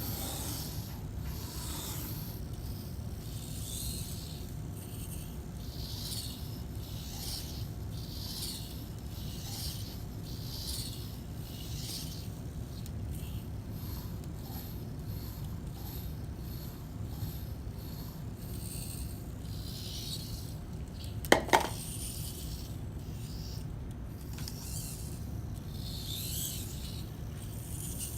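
Pencil being worked by a Robix servo robot arm: repeated short scratching strokes, roughly one a second, over a steady low hum, with a sharp double click about 21 seconds in.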